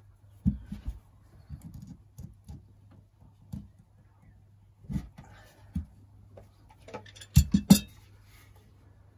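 Scattered knocks and clicks of plumbing fittings and tools being handled, with a louder quick cluster of knocks near the end, over a steady low hum.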